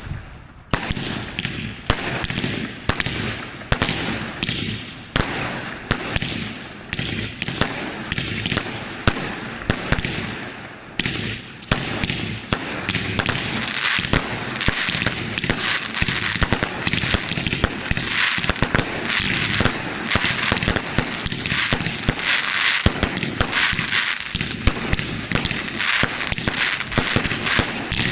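A homemade fireworks finale board firing: a rapid string of bangs and pops. About eleven seconds in it thickens into dense, continuous crackling with bangs on top.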